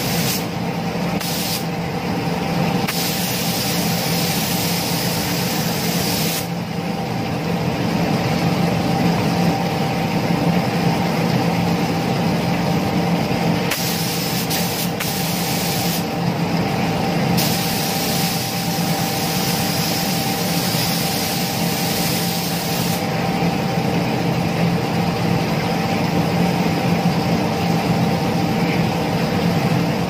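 Gravity-feed spray gun spraying clear coat onto a motorbike fairing panel, its air hiss starting and stopping with the trigger in several passes, the longest lasting about six seconds. The spraying stops for good about three-quarters of the way through. A steady mechanical hum runs underneath.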